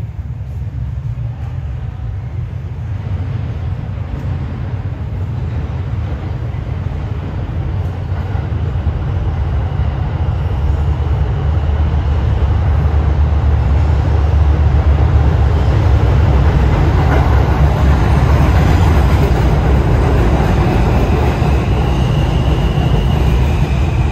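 R160 New York City subway train running on the rails, a heavy low rumble that grows steadily louder, with a high steady whine near the end that steps in pitch.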